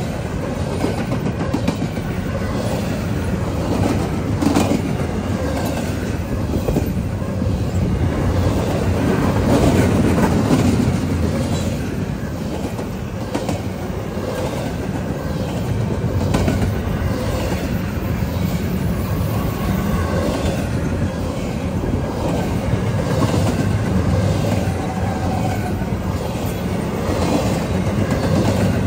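Freight train cars rolling past on the rails, steady wheel rumble with repeated clickety-clack of wheels over the rail joints.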